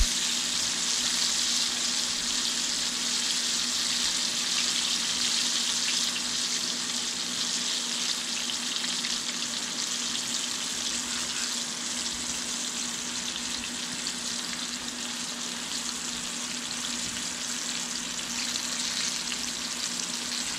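Floured chunks of burbot deep-frying in hot oil in a cast-iron skillet: a steady, dense sizzle of bubbling oil that eases off a little after the first few seconds. The bubbling slowing down is the sign that the fish is nearly done.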